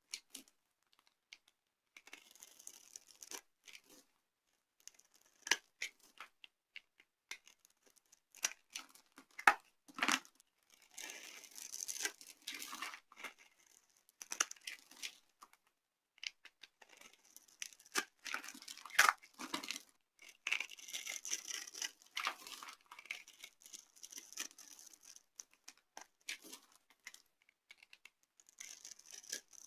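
Dry soap crushed and broken apart by hand, crisp snaps and crackling crunches. Single sharp cracks come and go, with denser runs of crackling about a third of the way in, around two thirds of the way, and near the end.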